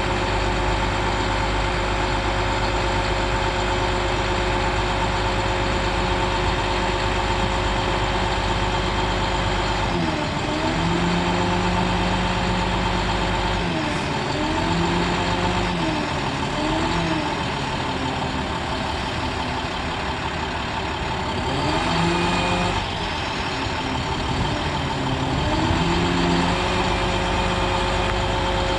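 International MaxForce DT466 turbo diesel of a bucket truck running steadily while powering the boom hydraulics. From about a third of the way in, its pitch rises and falls again and again as the Altec boom is swung and moved.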